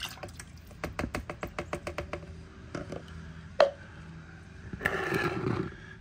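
Plastic measuring pitchers being handled on a table after a pour: a run of quick light clicks about a second in, a single sharper knock about three and a half seconds in, then a short rough rustling scrape near the end, which is the loudest part.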